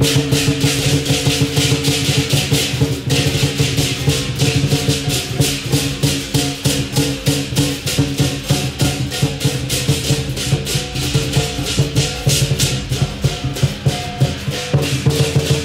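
Lion dance drum and cymbals playing a fast, even beat, with a steady ringing tone underneath.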